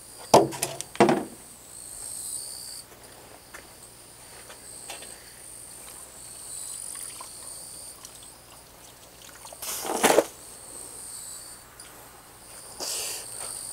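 Insects chirping in steady high tones throughout. Near the start two sharp knocks as a plastic crate is set down, and about ten seconds in a splash of a wet garment dropping back into the pot of hot water.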